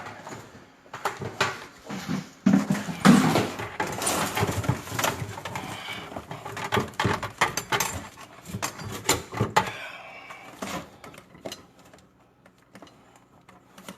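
Irregular metal clanks, knocks and rattles as drain-cleaning gear and pipe fittings are handled under a kitchen sink, busiest in the first ten seconds and dying down near the end.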